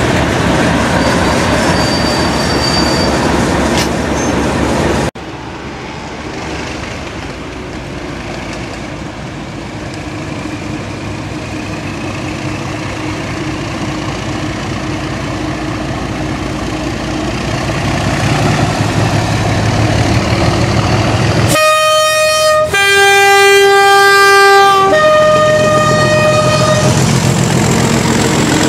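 Pair of British Rail Class 37 diesel locomotives with English Electric V12 engines: first loud engine noise close alongside, then, after a cut, the locomotives approach with their engine sound steadily growing. About 22 s in they sound their two-tone horn three times, high, low, high, each held one to two seconds, before running past close by.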